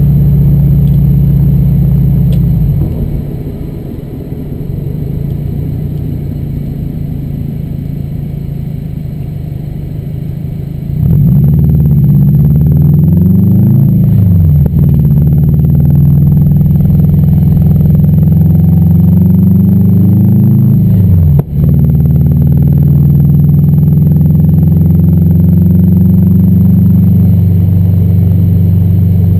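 2011 Subaru WRX's turbocharged flat-four heard from inside the cabin. It drones loudly, then goes quieter about three seconds in while the car slows. About eleven seconds in it pulls away hard, its pitch rising, with gear changes near fourteen and twenty-one seconds, then settles into a steady cruise.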